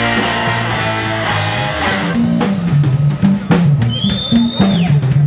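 Live rock band with a horn section of trombone, trumpet and saxophone starting a song: the horns hold a chord, then about two seconds in the drum kit and bass guitar break into a steady groove. About four seconds in, a single high note is held and then slides down.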